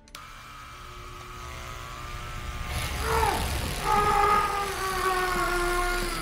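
A motorised skin-grafting dermatome switches on suddenly and runs with a steady buzz that grows louder. About three seconds in, high pitched tones slide downward and then hold over it.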